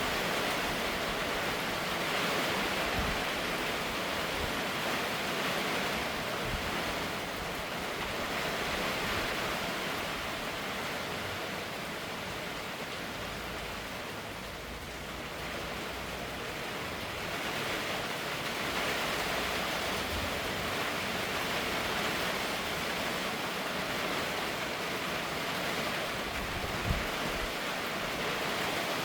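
Steady rain falling, an even hiss that eases slightly about halfway through and then builds back. One brief soft thump near the end.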